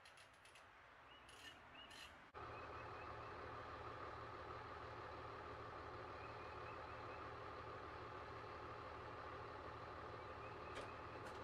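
Diesel engine of a Sterling flatbed truck idling steadily. It comes in suddenly about two seconds in, after a few faint clicks.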